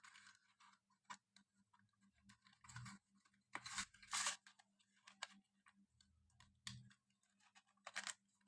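Faint clicks and rustles from power supply units being handled and set down, with a louder cluster of scrapes about four seconds in, over a faint steady low hum.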